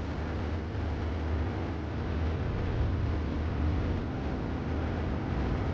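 Steady engine drone and road noise of a moving city bus, heard from inside the bus.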